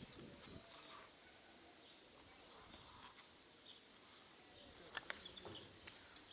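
Faint outdoor ambience with small birds chirping now and then, short high calls about once a second. A couple of sharp clicks about five seconds in.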